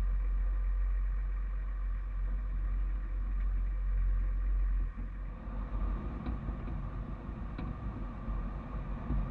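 Toyota HZJ75 Land Cruiser's 1HZ inline-six diesel engine running as the truck drives slowly over a rough dirt track. About five seconds in, the steady low rumble turns uneven, with a few light knocks.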